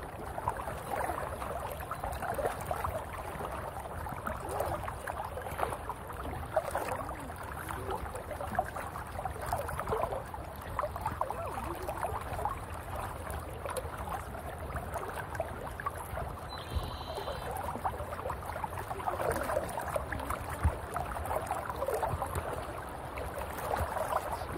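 River water gurgling and lapping close against a tandem kayak's hull as it glides downstream, a steady busy burble with no clear rhythm.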